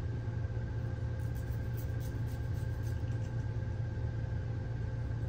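Steady low mechanical hum with a couple of constant tones above it. Over it come a few faint, short scratching strokes from a nail file being worked on a dog's claws.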